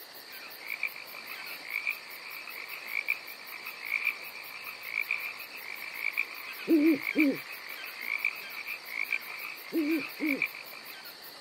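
Night chorus of frogs croaking over a steady, high-pitched trilling chorus with a regular pulsing chirp. Two pairs of deeper double croaks stand out, about seven seconds in and again three seconds later.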